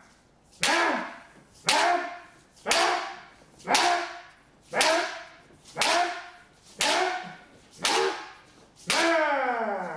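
Nine kendo head strikes, about one a second, each a sharp crack of the bamboo shinai on the head armour together with a shouted kiai that falls in pitch and fades.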